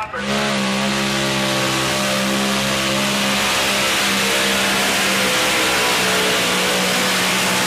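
Modified pulling tractor's engines held at full throttle as it drags the weight-transfer sled, a loud, steady, unbroken engine sound that comes in suddenly.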